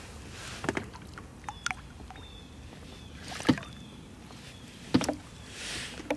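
Irregular knocks and clunks of fishing gear in a small boat, about half a dozen in all, the loudest about three and a half and five seconds in, between soft rushing whooshes.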